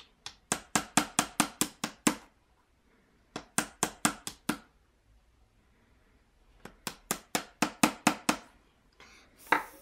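A plastic digging tool chipping at the plaster block of an excavation-kit pyramid. It makes three runs of quick sharp taps, about six or seven a second, with short pauses between them.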